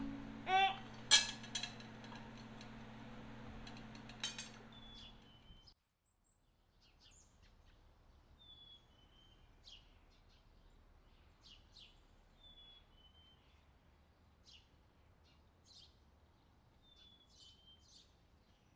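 Tableware clinking as rice is served, with a few sharp clicks over a low steady hum. After a sudden cut about six seconds in come faint birds singing, with one short whistled phrase repeated every few seconds among higher chirps.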